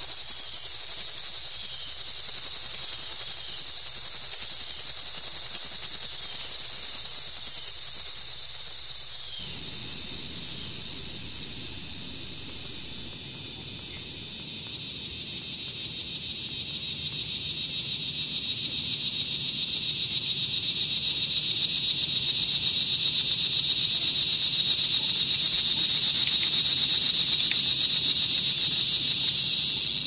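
Harsh noise music (gorenoise): a dense, high-pitched buzzing hiss with an insect-like texture. A low rumbling layer comes in about a third of the way through. The whole wall of noise sags in level around the middle, then swells back up.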